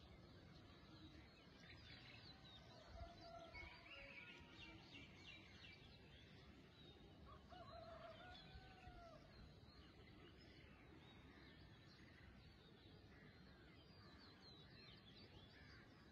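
Faint birds chirping and calling, with a couple of lower arching calls about three and eight seconds in, over a quiet background hum.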